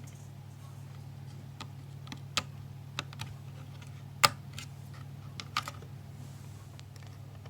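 Slow, irregular typing on a computer keyboard: about ten scattered key clicks, one sharper than the rest near the middle, over a steady low hum.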